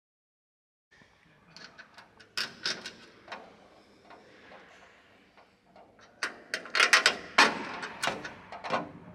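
Silent for about the first second, then scattered metallic clicks and light knocks of a hex key working a bolt on an aluminium control-surface hinge bracket, with hand-handling noise. The clicks grow louder and come thicker about six seconds in.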